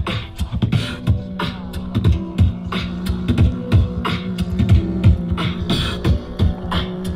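Beatboxing in a live group improvisation: vocal kick and snare hits about twice a second over a sustained low drone.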